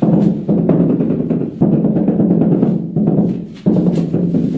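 Music with drums and percussion, coming in loud blocks that start abruptly every couple of seconds.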